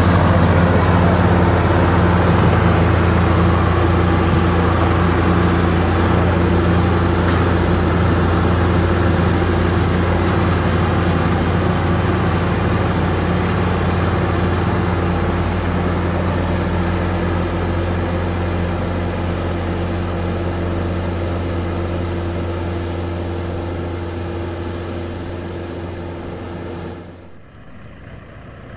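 Diesel tractor engines, a Mahindra and a three-cylinder Swaraj 744 FE, running steadily under heavy load while hauling a fully loaded, stuck trolley out of soft ground. The sound fades slowly as they move off, then drops away sharply near the end.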